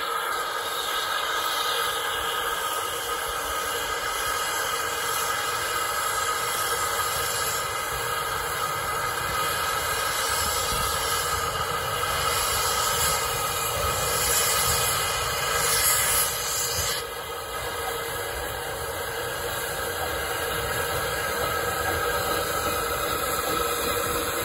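Baldwin narrow-gauge steam tank locomotive working away from a standstill, with a loud hiss of steam from its open cylinder drain cocks. The hiss builds through the middle and drops back suddenly about two-thirds of the way through.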